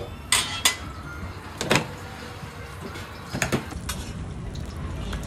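Steel spatula and square metal mould clinking against a flat-top steel griddle: a few sharp metallic clacks, two close together near the start, one just before two seconds in and a pair about three and a half seconds in.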